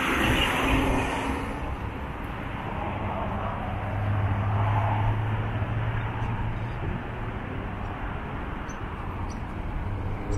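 Road traffic on a wide multi-lane city road: passing cars in a steady rush, with a low engine hum that swells between about four and six seconds in.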